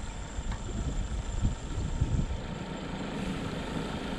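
A pickup truck's engine running at low speed as it approaches, its low hum growing stronger in the second half.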